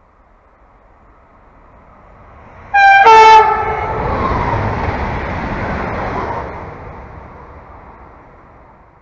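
LEO Express Stadler FLIRT electric train approaching and passing at speed: a rising rush of wheels on rail, a short two-note horn blast, high then low, about three seconds in, then the passing noise fading away.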